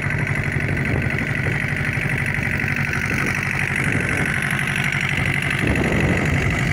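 Open wooden fishing boat's inboard engine running steadily under way, a fast, even pulsing drone.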